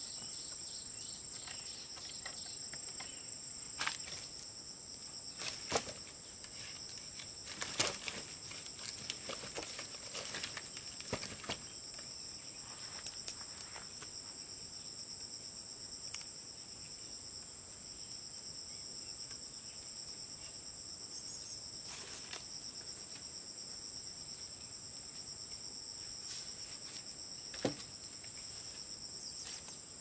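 Steady, high-pitched insect chorus, two constant trills. Several light knocks and taps fall between about 4 and 13 seconds in, and one more comes near the end.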